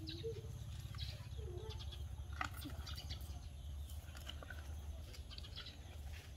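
Two short bleat-like animal calls near the start, with scattered high bird chirps over a steady low rumble.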